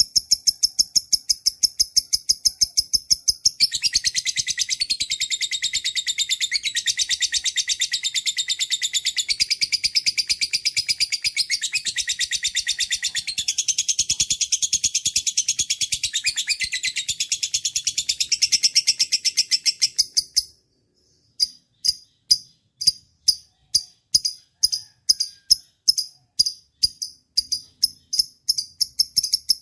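Songbird song for cage-bird tutoring: fast, evenly repeated high chirps that run into a dense, high trill for about sixteen seconds. The trill breaks off near the end and gives way to slower, separate chirps about two a second.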